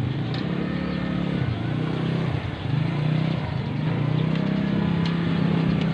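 Small motorcycle engine running steadily close by, its pitch shifting slightly up and down.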